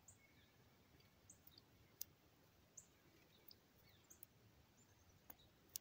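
Near silence, broken by a few faint clicks of small scissors trimming a cap-gun cap, the last one near the end the loudest, with faint bird chirps in the background.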